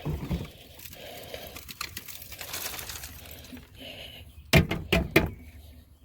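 A vacuum's dirt container being emptied into a trash can: knocks as it is handled, a stretch of rustling as the debris pours out, then three sharp knocks near the end as it is tapped to shake the rest loose.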